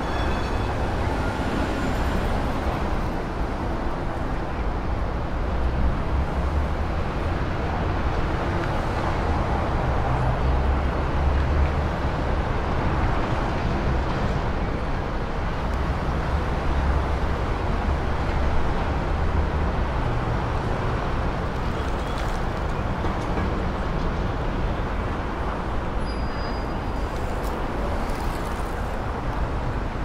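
Steady road traffic noise from a busy city street: cars passing continuously, with a constant low rumble.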